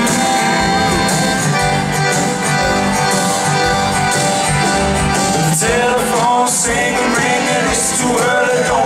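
Live band playing an easygoing acoustic pop song on acoustic guitar, drum kit and accordion.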